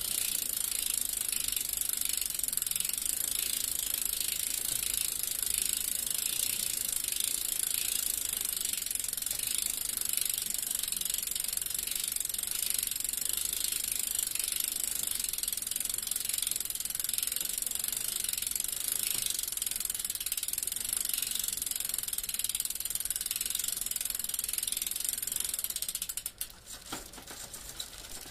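Bicycle freewheel ratchet clicking in a fast, even run of fine ticks as the wheel spins with the pedals still. The clicking drops away near the end.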